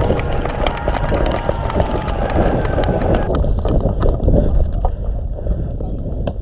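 Wind buffeting the microphone of a body-worn camera while the wearer moves on foot. Scattered footfalls and small knocks from gear run through it.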